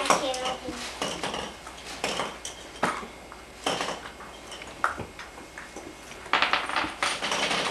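Plastic Easter eggs clattering against each other in a pile and clicking as they are pulled open by hand: a scatter of light sharp clicks and knocks, with a quick cluster of them near the end.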